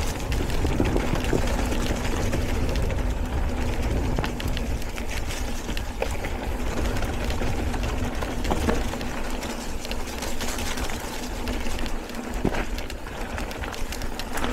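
Mountain bike ridden along a trail, with wind rumbling on the microphone, a steady hum from the moving bike and scattered knocks and rattles as it rolls over rough ground.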